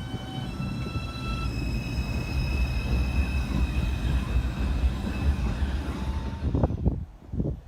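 R142 subway train pulling out of the station: a steady rumble under the electronic whine of its traction motors, which steps up in pitch about a second and a half in as the train accelerates. The sound drops away sharply about seven seconds in, followed by a few knocks.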